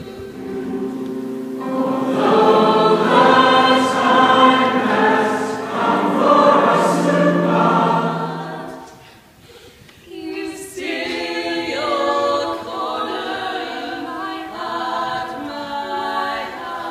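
A choir of voices singing together. The singing breaks off briefly about nine seconds in, then resumes.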